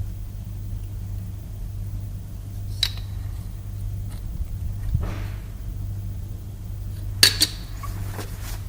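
A few sharp clicks of Lego plastic parts being handled: one a little under three seconds in and a quick cluster a little after seven seconds, over a steady low hum.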